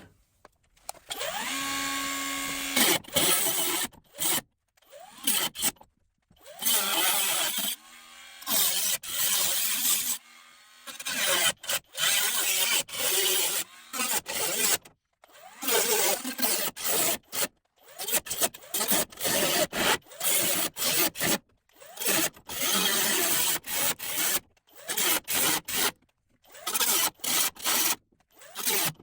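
Handheld power cutting tool spinning up with a rising whine, then cutting into a Beetle's rusted steel door bottom in many short bursts that stop abruptly.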